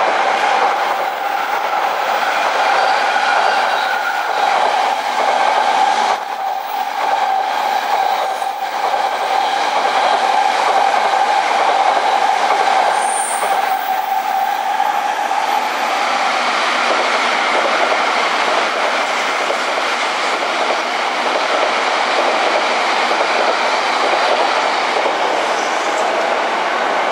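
Electric commuter trains at a station platform. First a JR E235-series Yamanote Line train runs with a steady high-pitched tone over its running noise. Then, from about the middle on, a Keihin-Tōhoku Line E233-series train rolls in alongside the platform with a loud, even rumble of wheels on rail.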